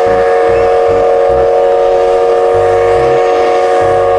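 Steam locomotive's whistle blowing one long, steady blast, several notes sounding together.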